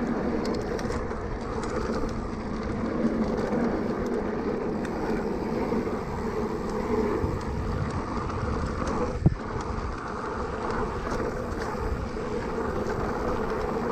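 Riding noise from a Cannondale Moterra 2 electric mountain bike: steady wind and tyre rumble with small rattles, and one sharp knock about nine seconds in.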